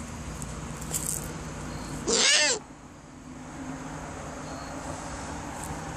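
An owl gives one short, loud call about two seconds in, its pitch rising and then falling.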